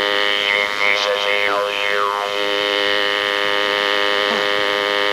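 Spiricom recording: a steady, buzzing chord of many electronic tones, with a few warbling, sliding pitches about a second in. This is the machine-like tone bed through which the Spiricom's purported voice of the dead is heard.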